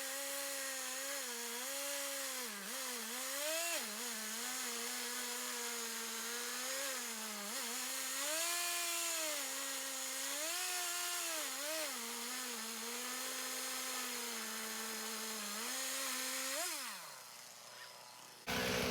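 Stihl 440 two-stroke chainsaw in a chainsaw mill, cutting a long rip through a log; the engine pitch wavers up and down as it labours under the load of the cut. Near the end the pitch drops away and the sound fades.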